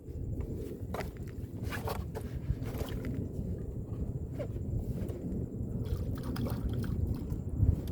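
Water sloshing and splashing in short strokes over a steady low rumble.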